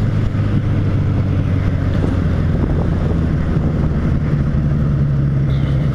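Motorcycle engine running at a steady cruise, a low even drone, with wind rushing over the microphone.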